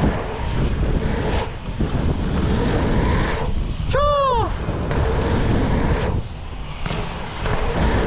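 Wind rushing over a helmet-mounted camera microphone as a mountain bike rides fast through a line of dirt jumps, with knobby tyres rolling on packed dirt. A short whooping shout that rises and falls about four seconds in.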